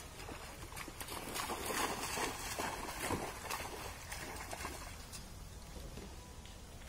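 Monkeys splashing as they swim in a muddy pond: irregular splashing and sloshing water, busiest in the middle and dying down near the end.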